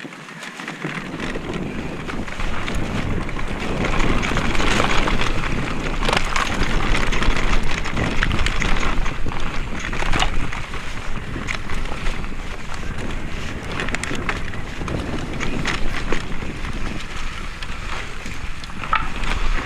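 Specialized Kenevo mountain bike descending a dirt forest trail at speed: wind buffets the action camera's microphone with a low rumble over the hiss of tyres on dirt, and frequent sharp knocks and rattles come as the bike hits roots and bumps. The noise builds over the first few seconds as the bike gathers speed.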